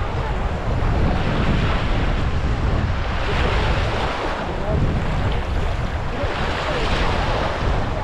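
Small waves breaking and washing up over sand at the water's edge, with wind rumbling on the microphone. The wash swells twice, about three and a half and seven seconds in.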